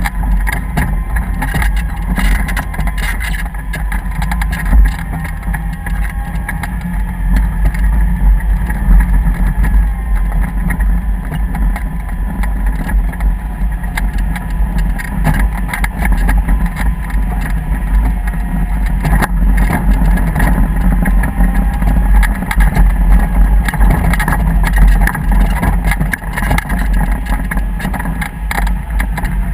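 A vehicle engine running steadily under a heavy low rumble, with scattered clicks and rattles.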